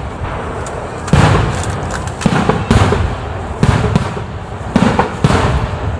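Aerial fireworks shells bursting in quick succession: about six loud booms, each followed by a rolling rumble, with crackling going on between them.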